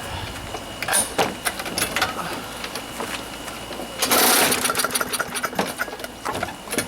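Scattered clicks and metallic clatter of hands working on a small lawnmower engine, with a short, louder rasping burst about four seconds in.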